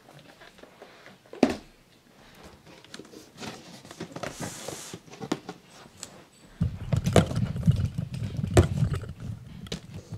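Cardboard box and foam packing being handled: a single knock about a second and a half in, a brief scraping rustle a few seconds later, then a louder stretch of low rumbling with several bumps near the end.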